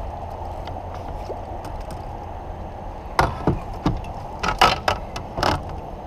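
Steady rush of flowing river water. From about three seconds in there is a quick run of six or seven sharp knocks and clatters, the loudest sounds here.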